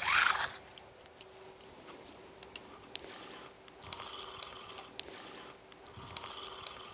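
Daiwa spinning reel cranked by hand, winding the shock leader onto its spool: two spells of rapid, even ticking from the reel's gears. A short rustle comes right at the start.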